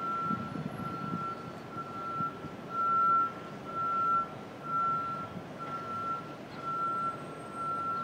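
Construction equipment's back-up warning alarm beeping: one high tone, about once a second, with a low rumble underneath.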